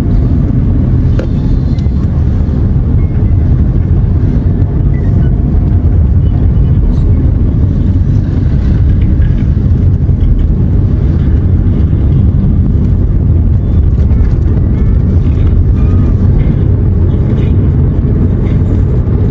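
Car driving along: a steady low rumble of engine and road noise heard inside the cabin.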